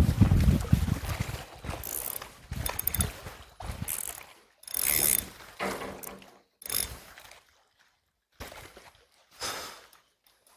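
Spinning reel working in short bursts, a run of separate mechanical whirs and clicks with quiet gaps, as a hooked Spanish mackerel is played on a bent rod. Wind rumbles on the microphone in the first second.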